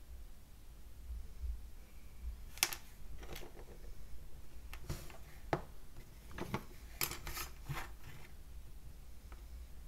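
Light clicks and taps of small wooden model parts being handled on a cutting mat, clustered between about two and a half and eight seconds in.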